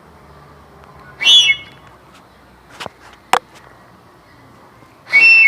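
Homemade high-pitch horn made of chicken wire, tape and a cut bottle, blown in two short, shrill, high-pitched blasts about four seconds apart, with a sharp click between them.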